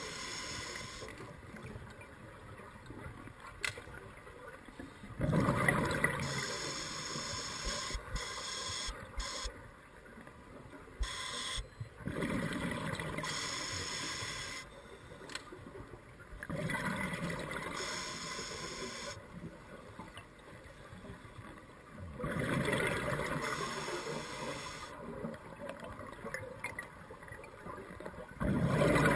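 Scuba diver breathing through a regulator underwater: exhaled air bubbles out in gurgling bursts of two to three seconds, about every five or six seconds, with quieter stretches between breaths.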